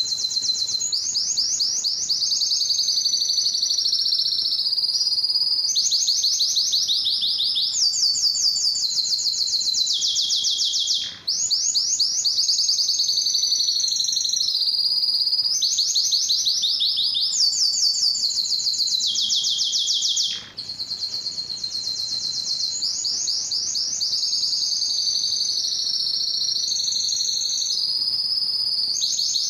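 Male domestic canary singing a long, continuous song of rapid high trills, switching to a new trilled phrase every second or two, with two brief breaks about eleven and twenty seconds in. It is a courtship song of the kind used to stimulate breeding canaries.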